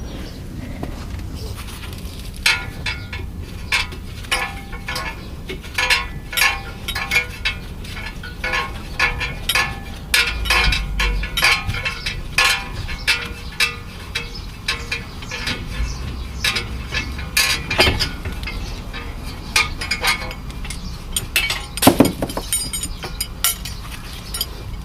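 Irregular metallic clinks and taps of brake parts being handled, the pads and caliper holding clips being worked loose from the caliper bracket.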